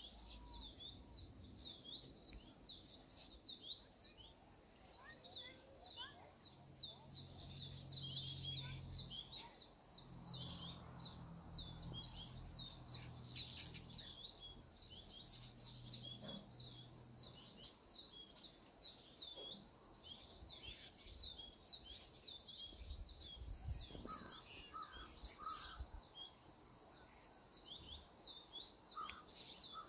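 Many small birds chirping in quick, overlapping, high-pitched notes throughout, with a faint low hum in the background for a while in the middle.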